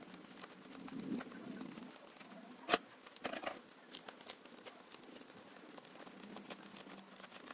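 Faint clicks and taps of hands working a plastic FlySky FS-GT3C transmitter and a screwdriver turning screws into its steering-wheel unit, with one sharper click a little under three seconds in and a few more just after.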